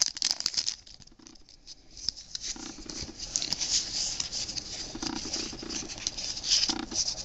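Pokémon trading cards being drawn out of a torn foil booster wrapper and slid against one another as the stack is handled. Crinkly clicks come in the first half second, then a steady papery scratching of card on card.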